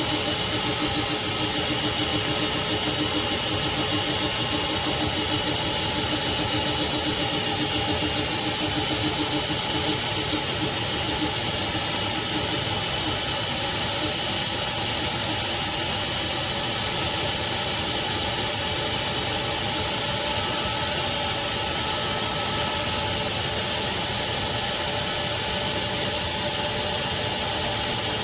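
Craftsman 16-gallon, 6.5 peak HP wet/dry shop vacuum running steadily: a motor whine with a few steady tones over a constant hiss of air.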